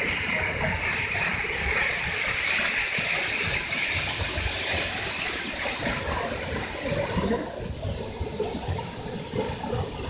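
Waterfall: the steady rush of falling water, its tone changing slightly about three-quarters of the way through.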